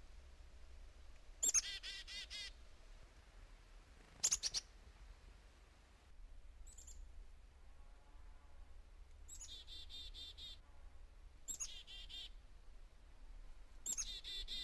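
Black-capped chickadees calling several times. Each call is a high opening note, and most run on into a quick string of buzzy "dee" notes: the chick-a-dee-dee call.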